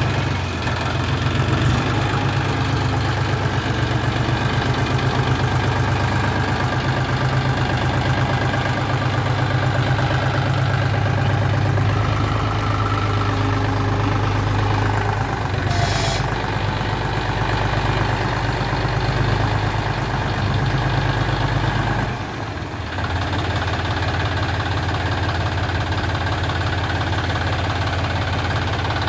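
John Deere 5045 D tractor's three-cylinder diesel engine running steadily at low speed as the tractor is driven slowly over gravel. The engine sound dips briefly about three-quarters of the way through, and there is one sharp click just past halfway.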